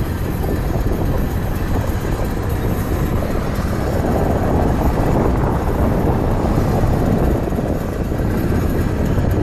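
A car driving, with a steady rumble of wind, engine and tyre noise picked up by a camera held out in the open air above the car.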